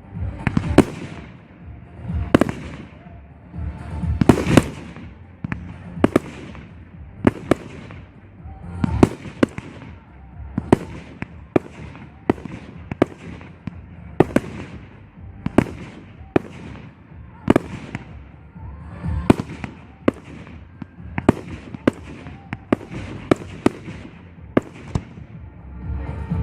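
Aerial fireworks shells bursting one after another in a professional display, a sharp bang every second or so, each trailing off in a rumbling echo.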